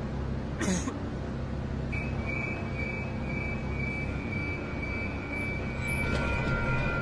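Steady low rumble of a moving passenger vehicle heard from inside its cabin, with a short click a little under a second in and a steady high whine that comes in about two seconds in.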